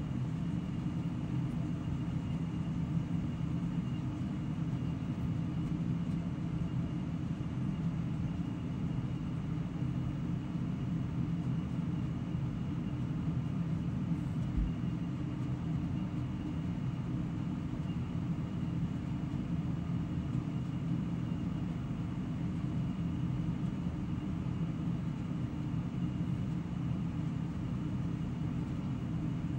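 Steady low hum of background room noise, unchanged throughout, with one faint knock about halfway through.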